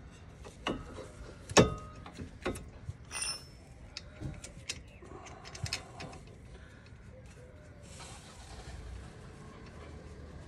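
Metal tools and brake parts clinking and knocking during a brake pad change: about a dozen sharp clicks in the first six seconds, the loudest about one and a half seconds in. A soft rushing sound follows near the end.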